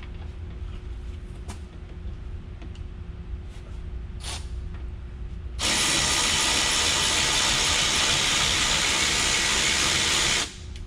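Compressed air hissing loudly and evenly for about five seconds, starting and cutting off abruptly. Before it, a few faint clicks from hand tools working on the hub bolts.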